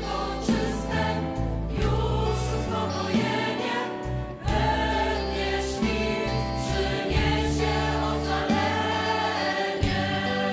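Music: a choir singing with instrumental backing and a moving bass line.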